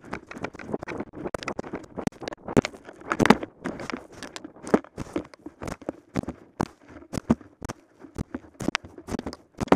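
Footsteps crunching in snow: an irregular run of short crunches and knocks, two or three a second.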